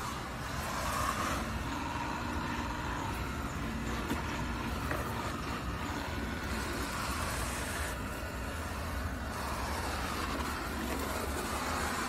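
Eufy G30 robot vacuum running across a tile floor, its suction fan and brushes giving a steady whirring hum.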